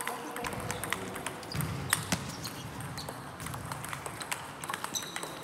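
Table tennis backhand rally: a celluloid-type ping-pong ball clicking off the rubber of the bats and bouncing on the table, a quick run of sharp clicks.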